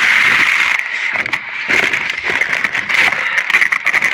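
Irregular rattling and scraping clatter of junk being shifted and handled in a dumpster, over a steady high-pitched hum.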